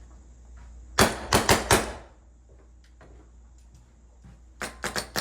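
Naughty Dogs Timmy paintball marker firing two quick strings of four shots: four sharp pops about a second in, then four more near the end. The marker is being cycled to settle and check the freshly adjusted LPR pressure.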